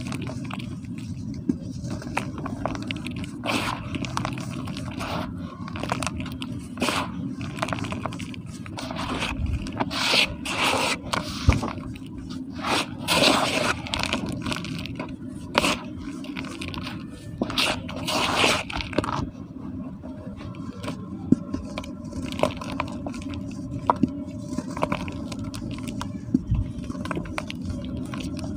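Hands crumbling clumps of slightly damp cement and rubbing and scooping the gritty powder, a dry scraping and crunching made of many small crackles. It comes in busier, louder bursts through the middle stretch.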